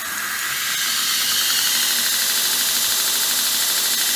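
Belt grinder switched on and spinning up: a hissing whir that builds over about the first second, then runs steadily, its tensioner held by a newly made music-wire spring.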